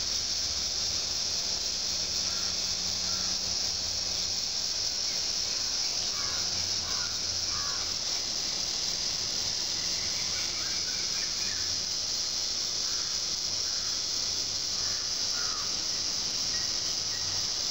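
Steady outdoor insect chorus, like crickets, with faint, short bird calls breaking in now and then.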